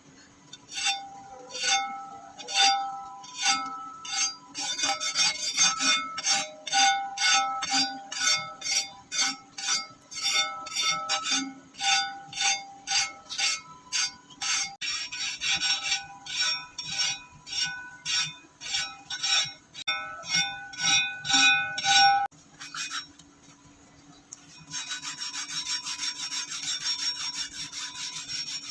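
Hand file rasping along the edge of a rusty steel meat cleaver clamped in a vise, in repeated strokes about one to two a second, each leaving a ringing tone from the blade. The filing stops about three-quarters of the way through, and after a short pause a steady rubbing of sandpaper on the blade begins.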